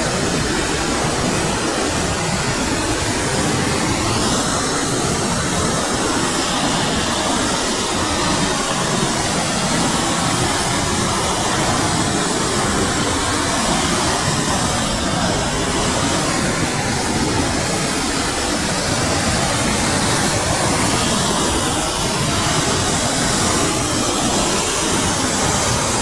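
Loud, steady rush of a river in flood, its muddy water pouring over a waterfall and rapids after heavy rain.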